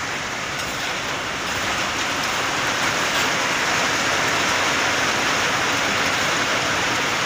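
Pav bhaji bhaji sizzling steadily on a large flat tawa griddle, growing a little louder over the first couple of seconds.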